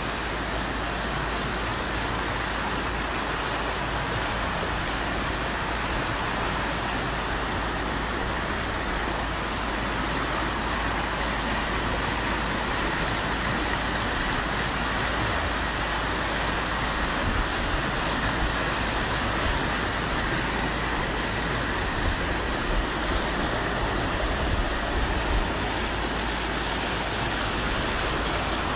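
Flash floodwater rushing down a street in a fast, turbulent flow: a steady rush of water that grows a little louder partway through.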